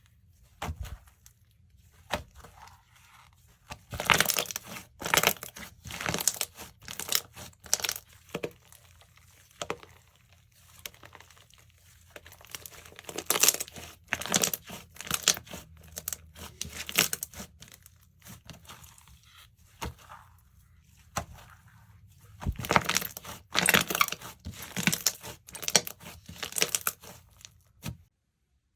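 Slime being squished, stretched and folded by hand: clusters of crackling pops and tearing sounds, with quieter gaps in between, and the sound stops abruptly near the end.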